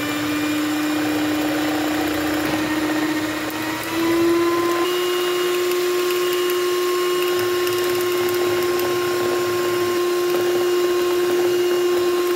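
Electric hand mixer running with its twin beaters in a thick chocolate cream mixture, a steady motor hum. About four seconds in it is switched to a higher speed and the hum steps up in pitch and gets louder, rising a little again a second later before holding steady.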